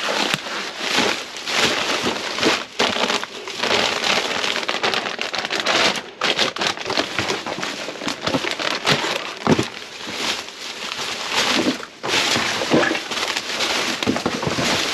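Plastic grocery bags and packaging rustling and crinkling as gloved hands dig through bagged groceries and cardboard boxes, with many irregular crackles and small knocks.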